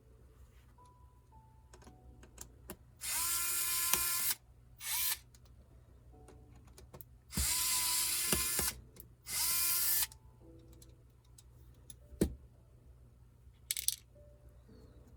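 Small electric screwdriver running in four short bursts, two of them over a second long, backing out the screws of a Dell Inspiron 13 5330 laptop. A sharp click comes about twelve seconds in.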